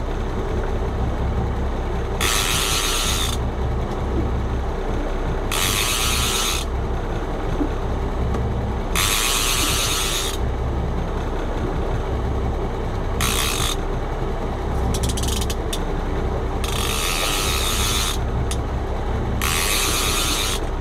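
Fishing reel being cranked in six bursts of about a second each, every three to four seconds, with pauses between, while a hooked fish is reeled in on a bent rod. A steady low rumble runs underneath.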